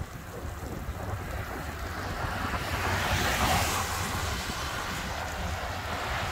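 Wind buffeting the microphone while riding an e-bike: a steady low rumble under a rushing hiss that swells about three seconds in and then eases.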